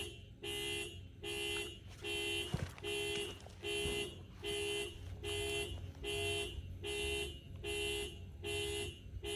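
Electronic warning beeper sounding a steady run of identical beeps, about one every 0.8 seconds, like a vehicle's reverse alarm. A single short knock comes about two and a half seconds in.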